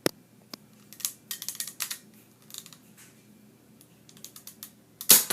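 Nerf pistol's plastic mechanism clicking in quick runs as it is primed and fired repeatedly, with a louder snap near the end.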